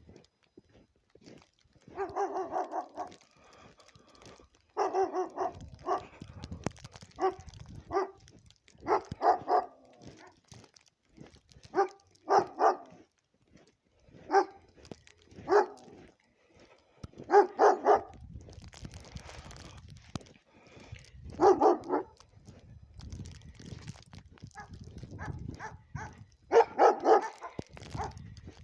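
A dog barking over and over, single barks and quick pairs coming every one to few seconds, with a low rumble in the gaps between some of them.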